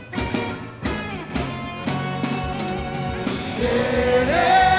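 Recorded song for a quadrilha junina dance: an instrumental opening with regular drum hits, and a sung voice coming in near the end.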